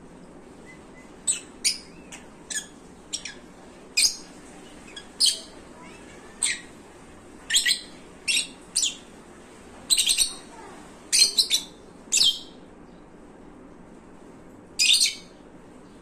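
Lutino peach-faced lovebirds chirping: a string of about fifteen short, sharp, high-pitched calls, some single and some in quick pairs, with a pause of a couple of seconds before one last call near the end.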